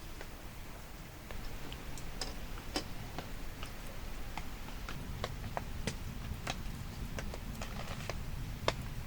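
Scattered sharp clicks and pops, about a dozen at irregular intervals, over a low rumble that comes up about a second in.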